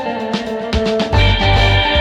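Background music with a steady beat: guitar-led instrumental with drums, with a held bass note about halfway through.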